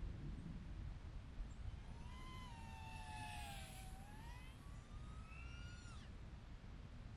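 Small FPV quadcopter's Airblade 1404 brushless motors whining faintly, the pitch sliding down and then climbing with throttle before cutting off suddenly, over a steady low rumble of wind on the microphone.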